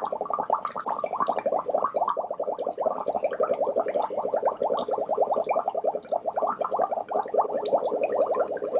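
Bubbles blown through a straw into a glass bowl of water: a steady, fast, unbroken bubbling.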